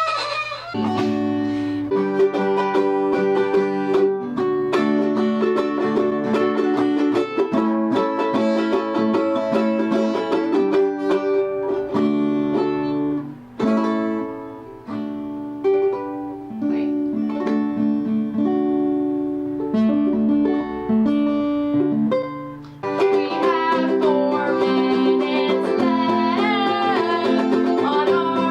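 Chords strummed in a steady rhythm on a plucked string instrument. Near the end a higher melody with a wavering vibrato joins in over the strumming.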